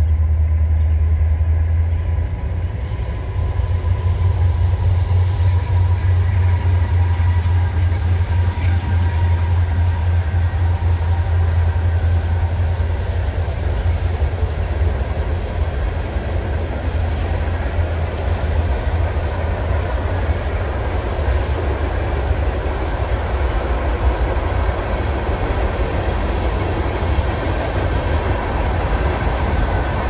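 Freight train of boxcars and tank cars rolling past: a steady, loud low rumble.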